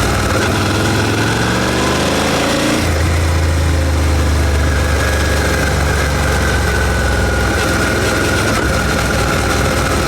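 Suzuki SV650's 645 cc 90-degree V-twin running through its stock exhaust at low road speed. Its revs climb for about three seconds, then the higher sound drops away and it runs on steadily at an even pitch.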